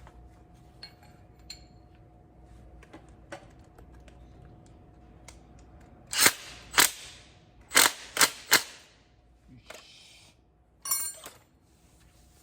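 Sharp metallic clinks and knocks of hand tools and metal parts being handled. There are five loud strikes about halfway through, a short scrape, and then a quick rattling clatter near the end.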